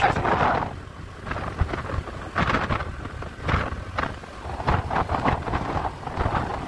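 Wind buffeting the microphone of a moving road vehicle, gusting every second or so over a low road rumble.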